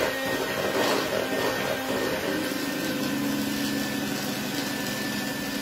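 Electric hand mixer running at a steady hum, its beaters churning through chiffon-cake batter in a bowl.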